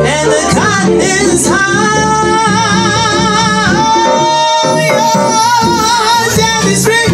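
Live jazz: a woman singing long, wavering held notes with a band of upright bass, trumpet and drums.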